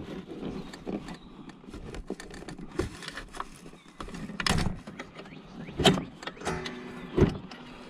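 Flat-blade screwdriver prying and scraping at a worn plastic steering-shaft bushing on a lawn tractor to pop it out of its plate: irregular small clicks and scrapes with several sharper knocks, and a short creak near the end.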